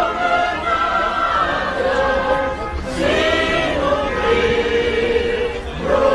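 Mixed choir of men's and women's voices singing slow, long-held chords.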